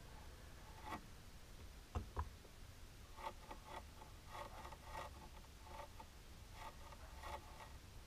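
Faint scratching and tapping of a nail polish brush and long fingernails while polish is brushed onto a long natural nail: two sharp taps about two seconds in, then a run of small scratchy brush strokes.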